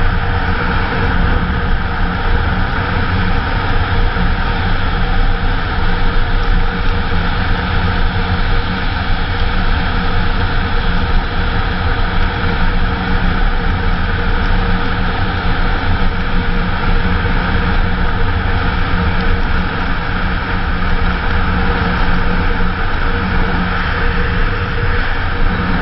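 Kawasaki KLR motorcycle's single-cylinder engine running steadily at cruising speed, with no change in pitch or level, heard from a camera mounted on the moving bike.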